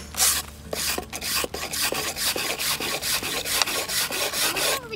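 Steel wire brush scraping along the grain of a charred wooden board in quick repeated strokes, about three a second, scouring off the burnt soft wood to bring out the grain texture (wood brushing after scorching).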